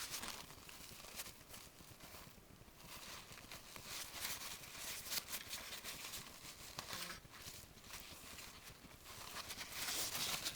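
Kitchen paper towel rubbing across the top of a server CPU to wipe off excess thermal grease: faint, uneven papery scrubbing strokes that swell and fade.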